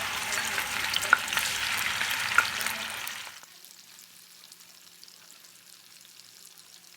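Marinated chicken pieces shallow-frying in hot oil and ghee, sizzling and crackling loudly with a few sharp pops, then much quieter after about three seconds.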